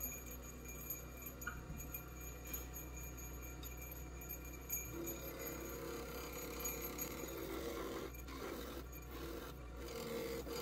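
Lathe running with a steady hum and faint whine while a hand-held turning tool cuts the spinning epoxy duck call blank, a scraping sound that grows stronger about halfway through.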